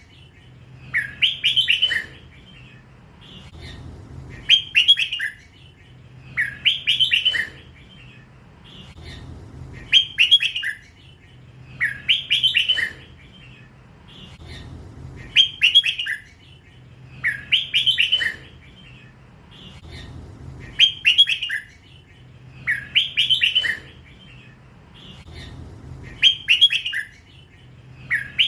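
A young hybrid red-whiskered bulbul sings the same short warbled phrase again and again, about once every three seconds. This is the drawn-out 'lak wai' song style that Thai bulbul keepers prize.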